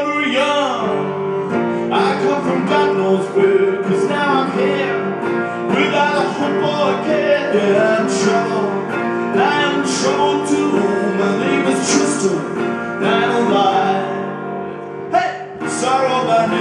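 Live rock band playing the instrumental break of a song, with strummed guitar to the fore.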